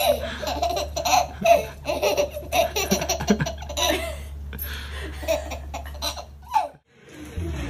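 Baby laughing hard in rapid short bursts, stopping abruptly near the end.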